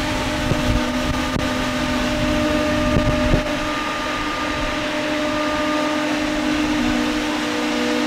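John Deere 310 X-Tier battery-electric backhoe working, with no diesel engine running: a steady electric whine and hum from its motor and hydraulics. A few low thumps come in the first three or four seconds.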